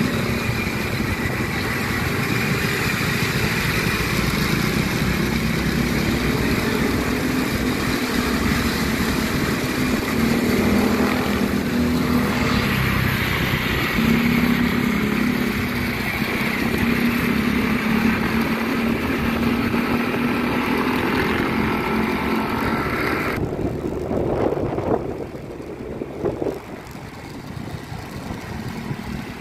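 A motorcycle engine running steadily while being ridden, with road noise. About 23 seconds in, the high hiss cuts out suddenly and the sound turns quieter, with a few short louder sounds after.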